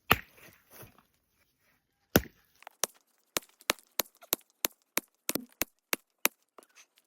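Hand tool striking a large stone to break it: two heavy blows about two seconds apart, then a quicker run of lighter, sharp knocks, about three a second.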